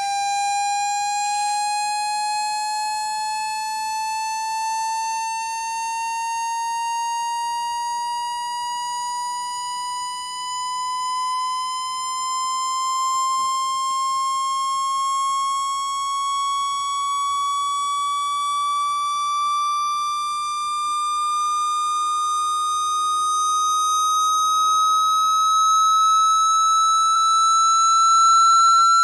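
Electronic speaker-cleaning tone: a steady buzzy tone sweeping slowly and evenly upward in pitch from about 800 Hz to about 1,340 Hz, played to vibrate water out of a phone speaker.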